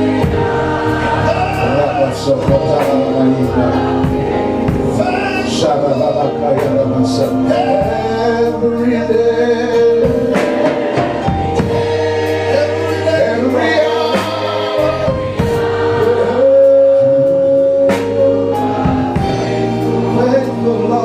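Church congregation and worship leader singing a slow gospel worship chorus together, with instrumental backing.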